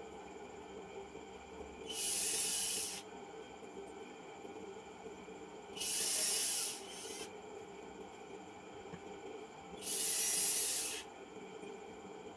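Three short hissing bursts of spray from an aerosol can, each about a second long and a few seconds apart, as used when spraying the key contacts of an electronic keyboard during repair.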